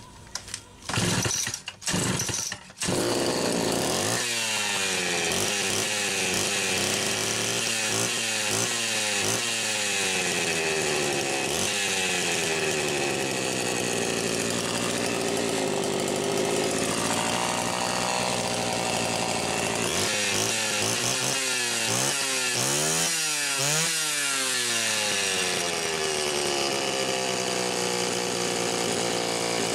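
A 1987 Homelite Super XL Automatic chainsaw's two-stroke engine is pull-started. It catches about three seconds in after a few short pulls, then idles and is revved up and down several times, with a quick series of blips about two-thirds of the way through.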